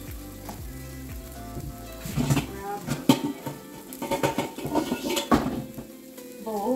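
Turkey meatballs sizzling in a frying pan, with a run of clattering pots and dishes from about two to six seconds in, the loudest a sharp clank about three seconds in.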